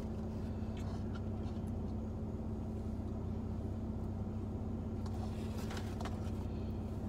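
Steady low hum of a car idling, heard from inside the cabin, with a faint held tone over it. A few faint clicks or rustles come near the end.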